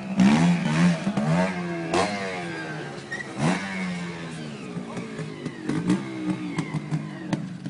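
Trials motorcycle engine idling, with a string of short, sharp throttle blips that each rise quickly in pitch and fall back, as the rider works the bike over rocks.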